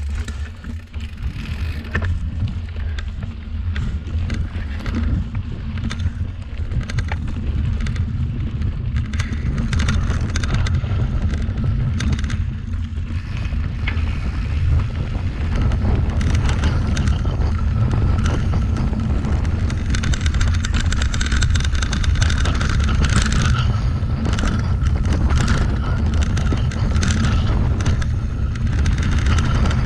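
Wind buffeting the microphone of a mountain bike rolling fast down a dirt and gravel trail, with the crunch of knobby tyres and many small clicks and rattles as the bike hits bumps and stones. The rush grows louder as speed builds.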